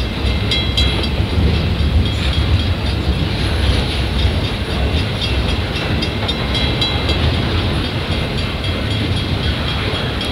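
CP freight train's flatcars loaded with wind turbine tower sections rolling steadily past on the rails, a continuous low rumble of wheels. Short high-pitched tones come and go over it.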